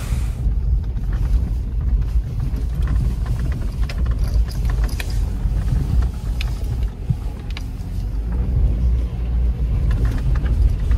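2005 Toyota RAV4 driving slowly along a rutted, muddy dirt track, heard from inside the cabin: a steady low rumble of engine and tyres, with scattered short knocks and clicks as it rides over the ruts.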